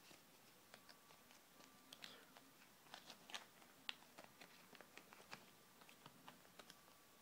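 Faint crinkling and crackling of a small folded paper Kinder Surprise instruction leaflet being unfolded by hand, a run of irregular little clicks, loudest about three to four seconds in.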